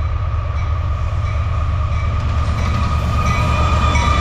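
Diesel locomotives of a Norfolk Southern freight train approaching and drawing level: a steady, loud low rumble with a high steady whine on top that grows louder near the end.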